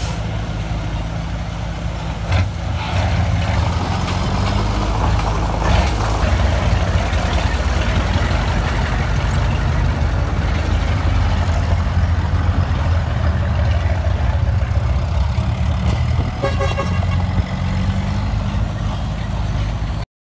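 Heavy diesel dump truck engine running steadily at low revs, with a sharp knock about two seconds in and rushing swells around three and six seconds in. A brief higher tone sounds near the end.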